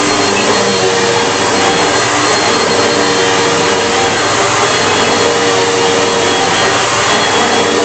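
Bissell PowerForce bagless 6582 upright vacuum cleaner running steadily: a loud, even rush of air with a constant motor hum.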